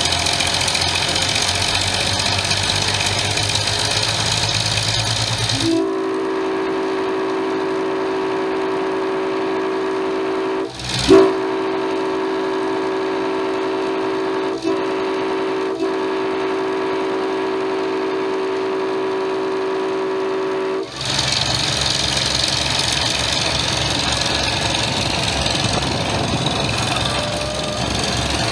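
Train running with a steady rumble, then a diesel locomotive's air horn sounding one long chord for about fifteen seconds, broken by a brief click partway through. The rumbling train noise returns after the horn stops.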